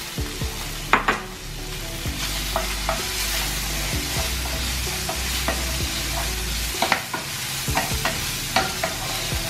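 Pre-cooked chicken pieces sizzling in hot oil in a frying pan, stirred and turned with a wooden spatula that knocks and scrapes against the pan at irregular moments, about once a second.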